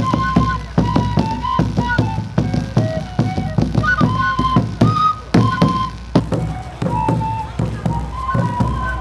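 Two cane flutes play a melody together over a large double-headed drum beaten with a padded stick, in frequent sharp strokes.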